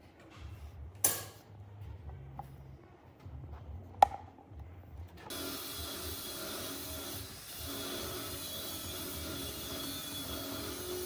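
Wood being handled on a bench: two sharp knocks about three seconds apart, the second the louder. About five seconds in, a steady hiss with sustained tones starts and carries on.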